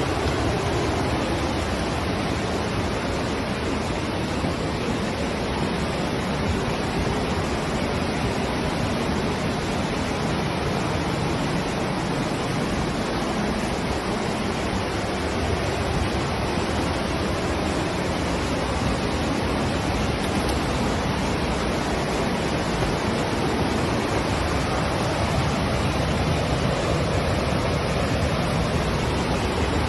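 Steady rushing water, an even, unbroken noise that holds the same level throughout.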